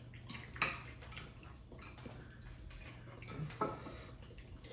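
Metal spoons scraping and clinking faintly against soup plates, with a sharper click under a second in and another about three seconds later.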